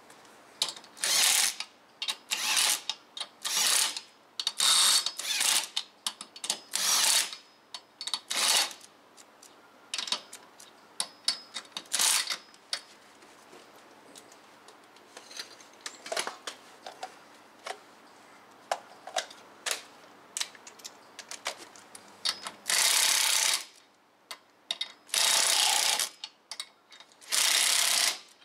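Cordless impact wrench running on a truck wheel's lug nuts. It gives about a dozen quick short bursts over the first nine seconds, then light scattered clicks, then three longer runs of about a second each near the end.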